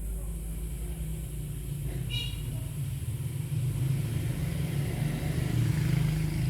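A low, steady engine-like rumble that grows louder toward the end, with a brief high chirp about two seconds in.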